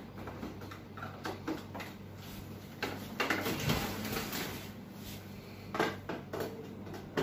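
Scattered clicks, knocks and scrapes of a screwdriver and gloved hands working at the plastic casing of an HP LaserJet Pro 200 Color MFP printer, busiest from about three to four and a half seconds in, over a low steady hum.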